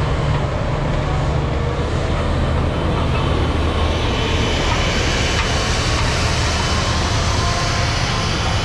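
Diesel engine of a farm machine running steadily, a low hum under a dense hiss that grows brighter about four seconds in.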